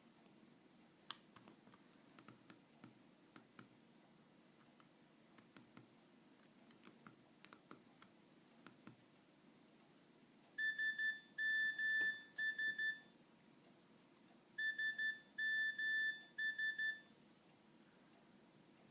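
Light clicks of a Nokia 2610's keypad buttons being pressed, then the phone's speaker plays a high single-pitched beep pattern twice, about four seconds apart: a few short beeps, a longer beep, then a few more short beeps. It is a phone ringtone or alert tone being previewed.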